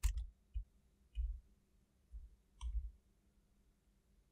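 A handful of faint, scattered clicks of computer keys, each with a low thump, spread over the first three seconds.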